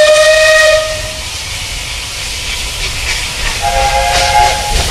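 Steam locomotive whistle of Bulleid Battle of Britain class 34081 blown twice: a loud blast of about a second at the start, then a shorter blast in a different pitch about three and a half seconds in, over a steady hiss of steam and a low rumble.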